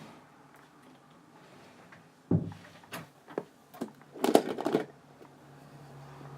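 Rummaging among household things: a thump about two seconds in, a few sharp knocks, then a short burst of clattering. A low steady hum starts after the clatter.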